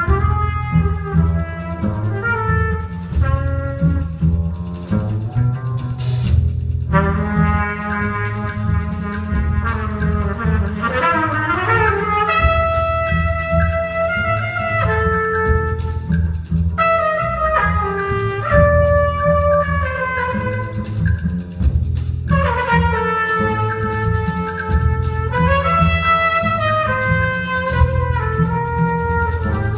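Small jazz group playing live: a trumpet plays held notes and short phrases over double bass and light drum-kit playing.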